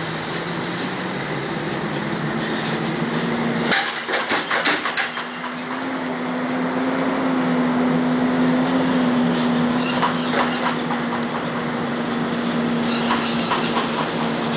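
A steady machine hum with one low, even tone under it, and a quick run of sharp clicks about four seconds in, with fainter clicks later.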